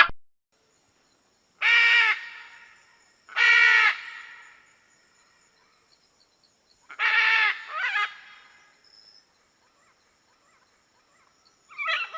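Macaw calls: short, harsh squawks, one about two seconds in, one about three and a half seconds in, a pair around seven to eight seconds, and another near the end, with silence between them.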